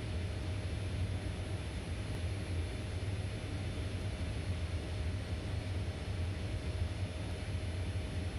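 Steady low hum with an even hiss over it, unchanging throughout: the ambient machinery noise inside an aircraft cargo hold.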